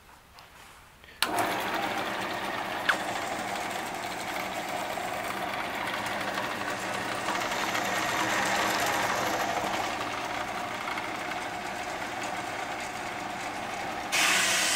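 JET 7" x 12" combination metal-cutting bandsaw switched on about a second in, its motor and blade then running steadily. A single click a couple of seconds later, and the running gets louder about a second before the end.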